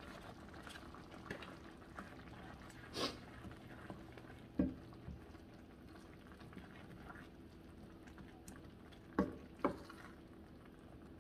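Crumbled pecan and vegetable mixture cooking softly in a steel skillet while a wooden spoon stirs and scrapes through it, with a few light knocks of the spoon against the pan.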